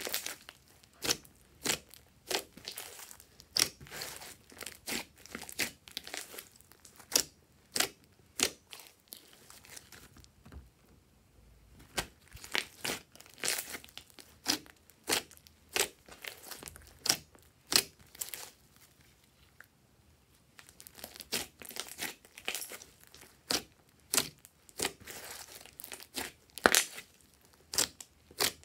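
Hands kneading, pressing and stretching a large mass of glossy slime, giving a stream of sharp, sticky clicks and crackles in irregular runs, with a couple of brief lulls.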